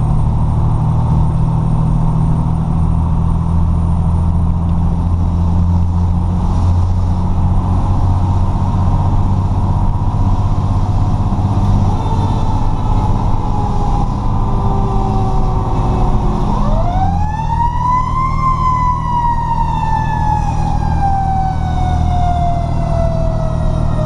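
A Federal Q mechanical siren on a 2003 Pierce Dash fire truck winds down slowly over the truck's engine and road noise. About two-thirds of the way in it is spun up quickly again to a high scream, then coasts slowly down.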